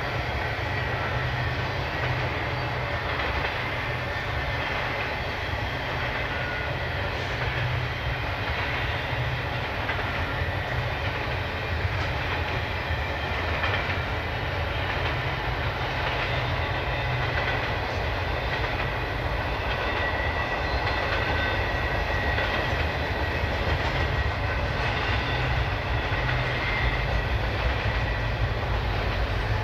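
Union Pacific intermodal freight train rolling past, a steady low rumble of wheels on rail that grows a little louder near the end.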